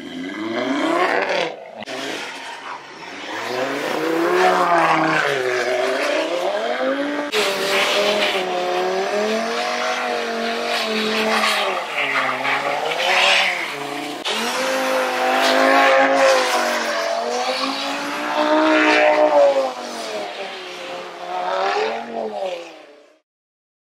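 Tuned Audi RS3's turbocharged five-cylinder engine, breathing through an RCP turbo-back exhaust, revving up and down over and over while the car spins donuts in snow. The sound cuts off near the end.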